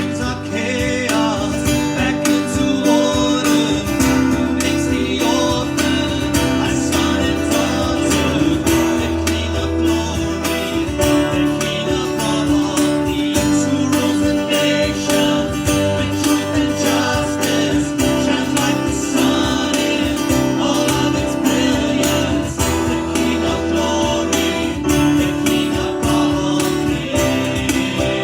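Worship song: strummed acoustic guitar with singing.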